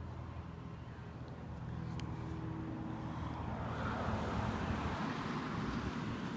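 Transit bus idling at the stop, a steady low engine hum, with a hiss swelling in about halfway through.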